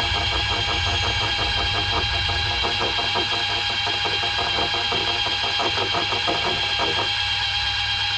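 Shimano Plays 3000 electric fishing reel's motor winding braided line onto its spool, with a steady whine and a rapid even ticking over it. The ticking stops about seven seconds in while the whine goes on.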